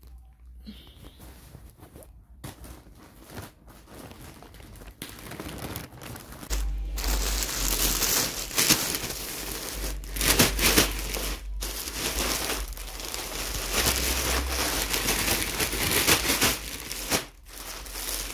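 Plastic courier mailer bag and plastic-wrapped clothing packets crinkling and rustling as they are opened and handled, quiet at first and growing louder and busier after about six seconds.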